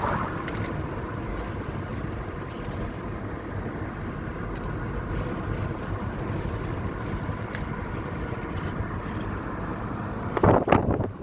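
Steady rumble of a car driving along a road, with a couple of brief louder sounds near the end.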